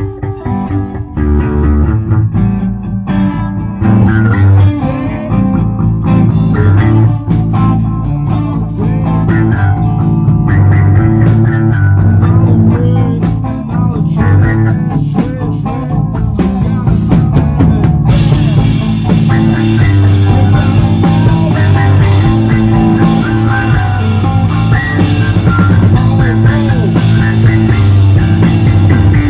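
Live rock band jamming: electric guitar chords over a drum kit. A little past halfway the cymbals come in and the sound gets fuller.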